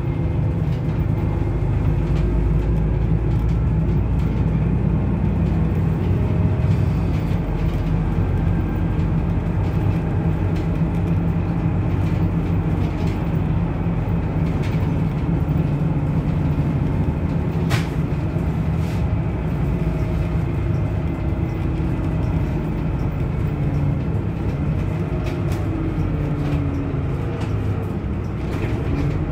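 Autosan M10LF city bus under way, heard from inside the passenger cabin: a steady engine and road rumble whose note drifts a little up and down as it drives. A single sharp click about 18 seconds in.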